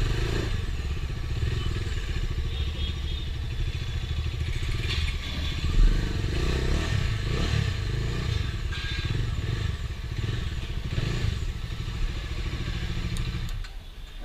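Bajaj Dominar 250's single-cylinder engine running steadily through its exhaust, then dropping away near the end.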